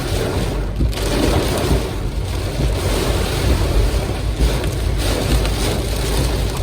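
Tropical-storm wind blowing hard, buffeting the microphone with a heavy low rumble and a rushing hiss that rises and falls.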